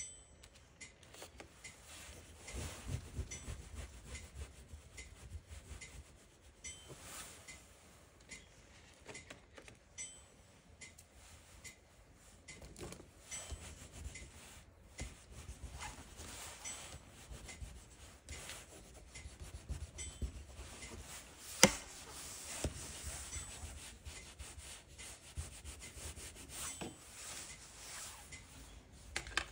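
Pastel and a dark drawing stick scraping and rubbing across sketchbook paper in short, uneven strokes as marks are scribbled on. One sharp tap stands out about two-thirds of the way through.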